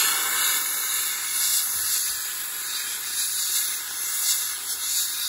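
Harbor Freight handheld blast gun spraying abrasive media with compressed air onto an old metal trowel: a loud, steady hiss.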